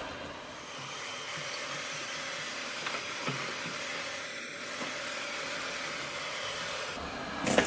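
Eufy RoboVac 11S robot vacuum running on tile, a steady, quite quiet whir of its suction motor and brushes as it manoeuvres to free itself from a tight spot. A couple of faint knocks about three seconds in.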